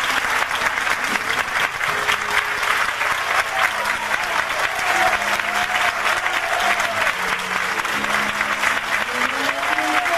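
Theatre audience applauding steadily while the band plays a soft instrumental intro underneath.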